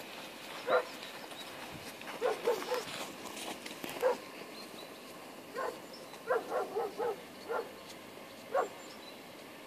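Dog giving short, sharp barks and yips, some single and some in quick runs of three or four, while held lying in a down-stay.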